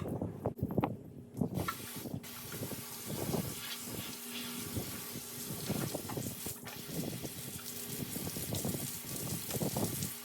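Hose nozzle spraying water through the AC condenser and radiator fins of a 2016 Toyota 4Runner to flush out packed dirt and debris. A steady hiss of spray sets in about a second and a half in, with irregular splashing underneath.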